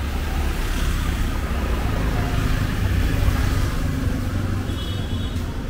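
City street traffic: a motor vehicle's engine rumble and road noise, swelling as it passes close about three seconds in.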